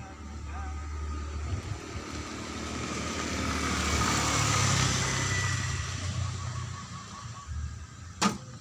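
A motor vehicle passing by, its engine and tyre noise swelling to a peak about halfway through and then fading away. A sharp click near the end.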